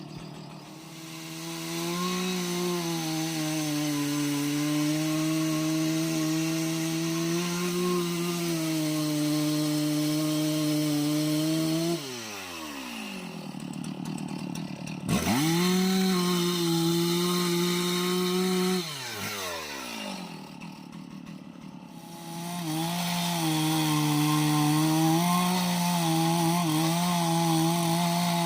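Two-stroke chainsaw running at full throttle cutting into an aanjili (wild jack) tree. The throttle is released twice, so the engine note falls away to a lower idle for a few seconds before it revs back up to cutting speed.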